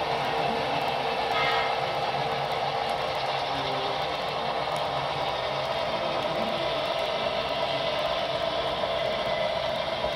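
HO scale model freight train rolling past on the track, a steady running hum of the cars' wheels and the locomotive.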